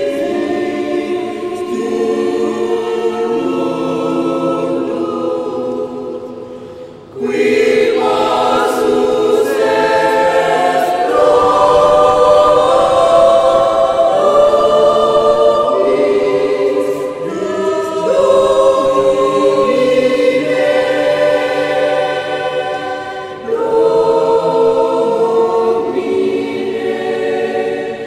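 Mixed choir of men and women singing held chords in parts. One phrase fades out about seven seconds in and the choir comes back in at full strength, with another brief break between phrases near the end.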